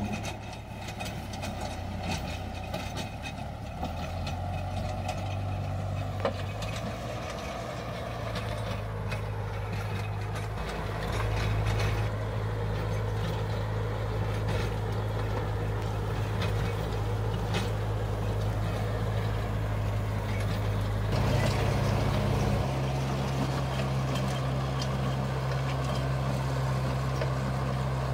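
Farm tractor's engine running steadily under load while driving a PTO rotary tiller and ridge-forming plastic-mulch layer working the soil. The engine note shifts a few times, about halfway through and again near three-quarters of the way.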